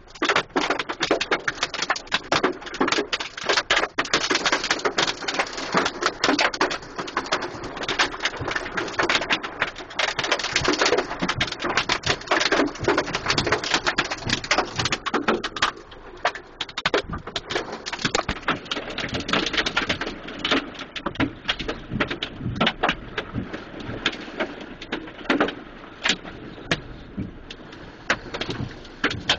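Hailstones pelting a vehicle's roof and windows: a dense, irregular clatter of hits that thins out about halfway through into sparser, separate louder strikes.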